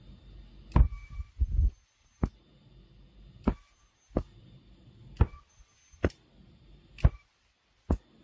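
Handheld J-1701 ultrasonic dog repeller switched on and off four times: a sharp switch click, about a second of thin, very high-pitched whine as it emits, then another click as it stops. Low handling rumble about a second and a half in.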